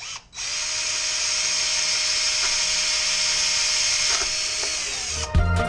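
DeWalt cordless drill running steadily for about five seconds as it drills out a rivet in a side-skirt panel, with a high hiss and a steady whine. Music starts just before the end.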